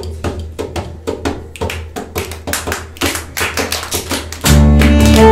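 Fast, even rhythmic taps keeping time, about four to five a second, over a steady low amplifier hum. About four and a half seconds in, the band comes in loudly, with saxophone and bass holding notes.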